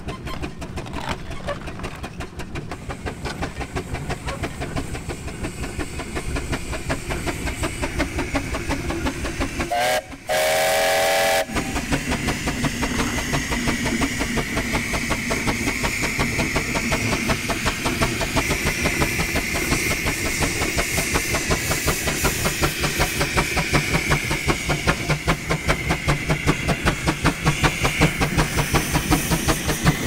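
1904 Fowler steam traction engine working under load pulling a plough, its exhaust beating in a fast, steady chuff with mechanical clatter. About a third of the way through, its steam whistle blows once for about a second and a half.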